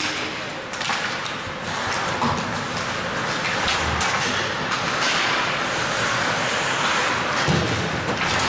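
Ice hockey arena noise during a game: a steady rush of crowd and rink sound with a few scattered knocks and thuds.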